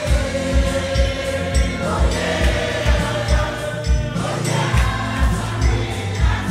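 Ghanaian gospel choir singing over a steady low drum beat of about two to three beats a second.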